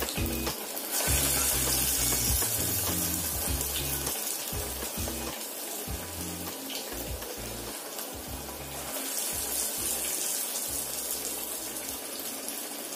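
Chana dal fritters deep-frying in hot oil in a wok: a dense, steady sizzle that swells louder about a second in and again around eight seconds in.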